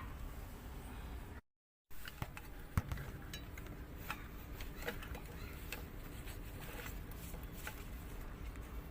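Scattered light clicks and taps of tools and parts being handled during washing machine repair work, over a steady background hiss and faint hum. The sound cuts out completely for about half a second about a second and a half in.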